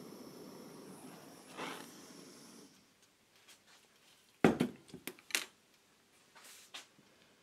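Small handheld gas blowtorch burning with a steady hiss, heating aluminium to melt the welding rod, then shut off just under three seconds in. A second and a half later come several sharp knocks and clatters, the loudest sounds here, followed by two fainter ones.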